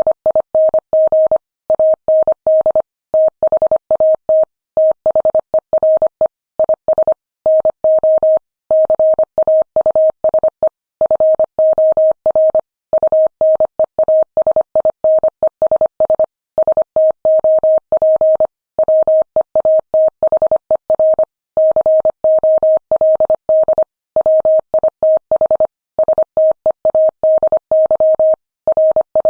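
Morse code sent at 25 words per minute: a single steady tone keyed on and off in rapid dots and dashes, with short gaps between characters and words.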